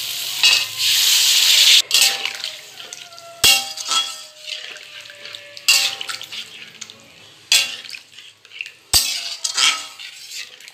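Water poured into the hot kadai of fried spices, eggs and potatoes sizzles loudly for about two seconds and cuts off abruptly. A metal spatula then stirs the curry, knocking against the metal kadai several times with short ringing clinks.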